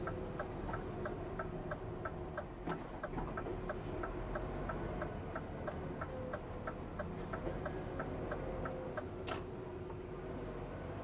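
Truck's turn-signal indicator ticking steadily, about three ticks a second, over the low hum of the Scania cab. Two sharper knocks stand out, about three seconds in and again near the end.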